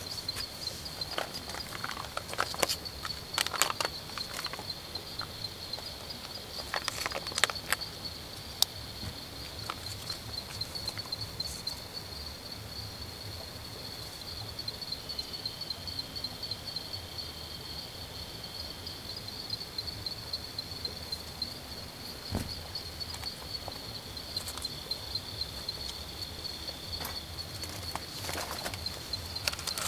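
Insects trilling steadily at a high pitch in a pine forest, with a few clusters of short clicks and rustles.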